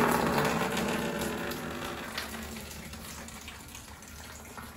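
Collected rainwater pouring out of plastic sheeting over a hole in the van roof and splashing down. It gushes loudly at first, then tapers off over about three seconds.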